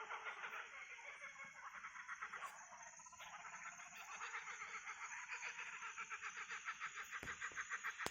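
Laughing kookaburras calling together in a rapid, rhythmic cackle that grows louder and more regular toward the end, over a steady high hum of cicadas.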